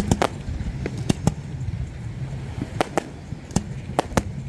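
Fireworks display going off: a string of sharp cracks and pops at uneven intervals, about nine in all, over a low rumble.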